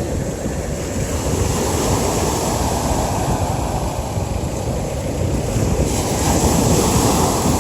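Sea surf washing onto the beach, with wind buffeting the microphone; the wash swells about a second in and again near the end.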